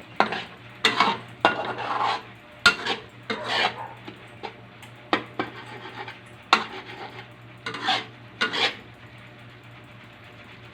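Cooking utensil stirring sautéed sardines in a pan, scraping and knocking against it in uneven strokes that stop a couple of seconds before the end, over a low steady hum.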